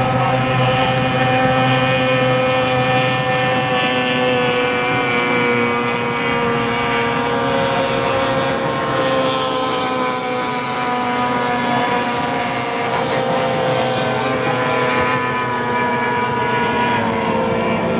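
Small racing hydroplane's outboard engine running flat out, a steady high engine note whose pitch falls slightly near the end.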